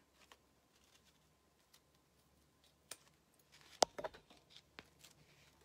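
Faint snips of small scissors cutting around an embroidered piece, then a sharp tap a little before four seconds in and a few small clicks as the recording device is handled.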